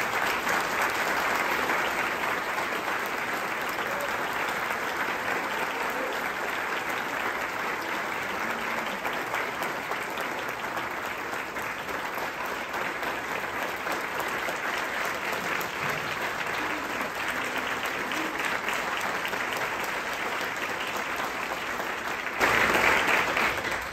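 Audience applauding steadily, growing louder briefly near the end.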